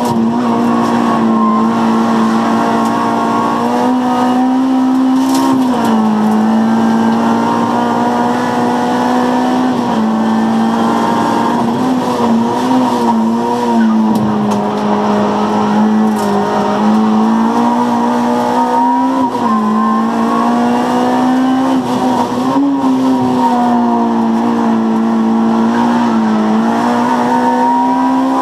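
Honda Civic Type R's 2.0-litre four-cylinder engine running hard near the top of its rev range, heard from inside the cabin, its pitch dipping briefly and climbing again every few seconds as the car is driven flat out up a hillclimb.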